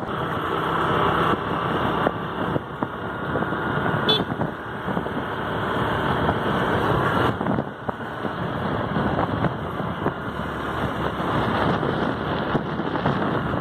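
A vehicle driving along a road: steady engine and road noise.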